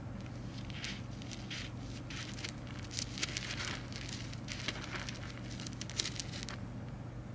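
Loose soil crackling and rustling as a common rain frog burrows into it: a dense run of irregular scratchy crackles that stops shortly before the end, over a steady low hum.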